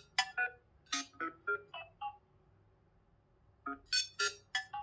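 A Nothing Phone (1) ringtone playing from the phone's own speaker: a quick run of short, bright synth notes, a pause of about a second and a half, then the phrase starting over.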